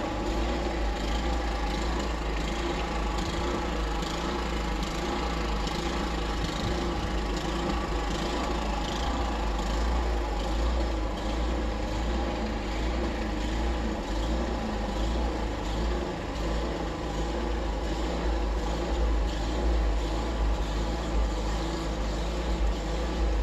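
An engine running steadily, with a deep low rumble beneath it.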